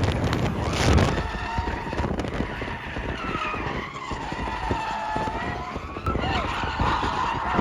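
Car tyres squealing and skidding on a road, with two heavy crashes about a second apart at the start.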